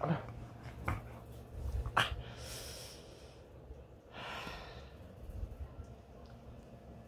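Breathing and snuffling right up at the phone from a Border Collie nosing at it, with a few soft knocks of the phone being jostled in the first two seconds and two breathy puffs later on.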